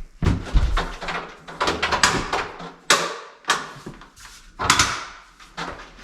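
A mobile home's exterior utility door being manoeuvred into its opening, with a string of knocks and bumps and several scraping sweeps as it is worked against the frame.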